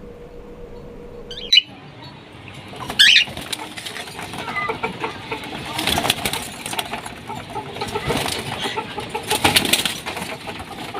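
A group of lutino cockatiels chirping and fluttering their wings in short bursts, with one loud, sharp call about three seconds in.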